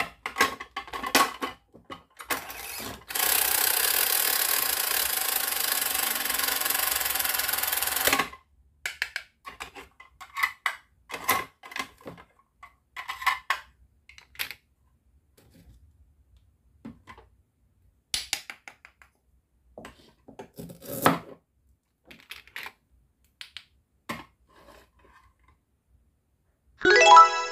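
Plastic toy kitchen pieces (play bread slices, toy toaster, plate) being handled: scattered light clicks and taps. About three seconds in, a steady loud hiss runs for about five seconds and cuts off suddenly.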